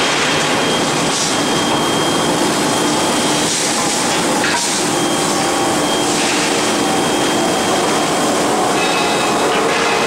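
Steady industrial noise of a rebar hot-rolling line, with its rolling-mill stands and induction billet heater running, and a few faint steady tones over an even din.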